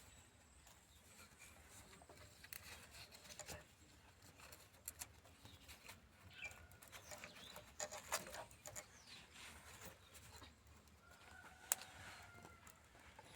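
Quiet rural background with faint bird calls and scattered light clicks and taps, one sharper click near the end.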